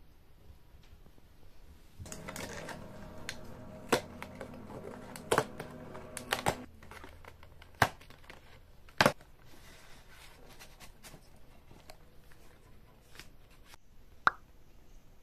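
Quiet tabletop handling: a paperboard cake box being opened and handled, with a handful of sharp taps and knocks, over a low steady hum during the first half. Near the end a short ringing clink of a metal fork on a ceramic plate.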